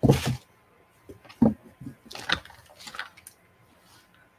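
Handling noise close to the microphone: a loud thump at the start as things are put down, then softer knocks, scuffs and rustles as she reaches and rummages for the next item.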